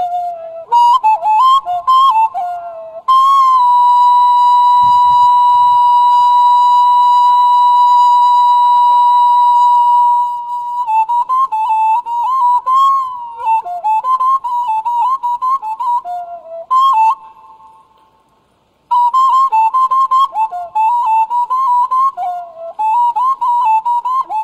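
Background music: a solo flute-like wind instrument plays a slow, ornamented melody with trills and a long held note. It fades away about seventeen seconds in and starts again about two seconds later.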